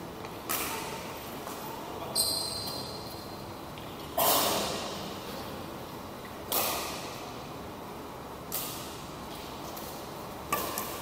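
Badminton rally: racket strings striking a shuttlecock about six times, roughly every two seconds, each hit echoing in a large hall. A short high squeak comes with the second hit.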